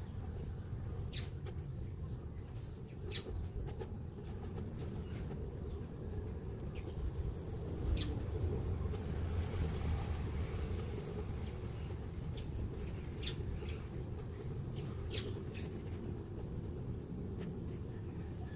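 Pencil sketching on paper: short, scratchy strokes coming in irregular bursts over a steady low background hum.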